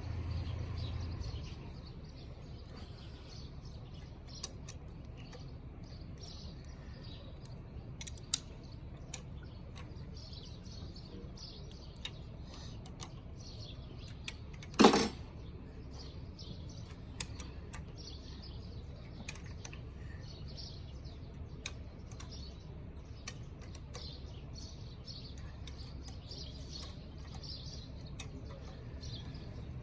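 Scattered light clicks and taps with birds chirping in the background over a steady low hum. One loud sharp knock about halfway through.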